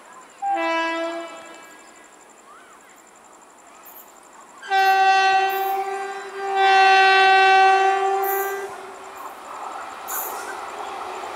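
Electric locomotive horn sounding one short blast, then two long blasts with a brief break between them, as an express train approaches. The train's running noise grows near the end.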